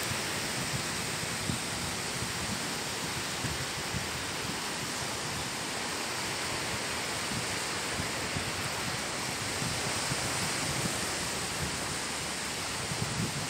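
Steady rush of small waves breaking on a sandy beach, with wind rumbling on the microphone.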